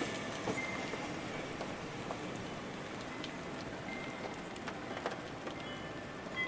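Steady rain beating against a window, with the sharp ticks of single drops striking through the even hiss.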